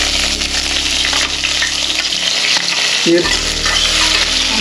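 Sliced onions sizzling as they hit hot oil in a kadhai and are stirred with a metal ladle: a steady, loud frying hiss.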